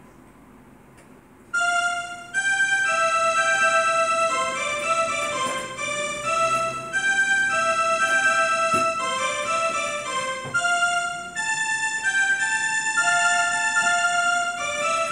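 Portable electronic keyboard playing a melody one held note at a time, in a bright piano-like voice; it is quiet for about the first second and a half, then the tune starts and runs on.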